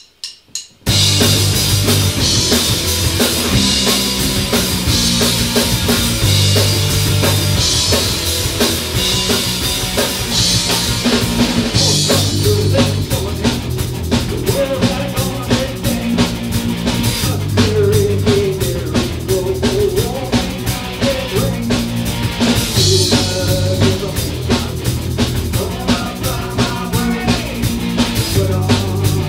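Rock trio of drum kit, bass guitar and electric guitar playing a loud instrumental passage together, the full band coming in about a second in after a few sharp clicks.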